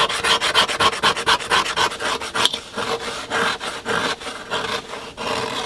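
Fingers scratching frost off the inside of a frozen boat cabin window: rapid rasping strokes, several a second, thinning out near the end.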